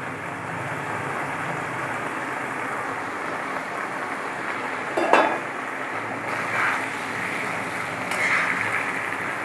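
Cookware sounds at a wok: a sharp metal clink about five seconds in as a steel bowl knocks the pan, then a metal spatula scraping through the cooking leaves twice near the end, over a steady cooking hiss.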